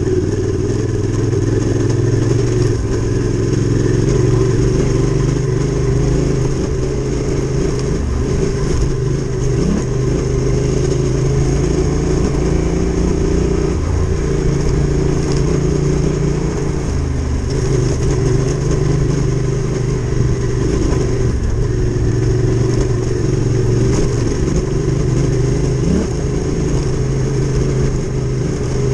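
Adventure motorcycle engine running steadily while riding a trail, its pitch stepping up and down a little now and then with the throttle.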